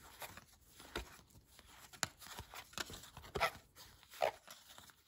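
Faint, irregular clicks and rustles of a stack of 1993 Topps cardboard baseball cards being thumbed through by hand, one card slid off the front after another.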